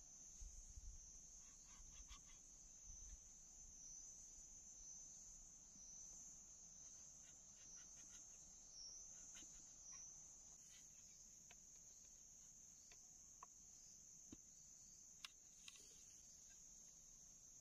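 Faint, steady high-pitched insect drone, with scattered soft clicks and scrapes of a machete blade carving a bamboo tube.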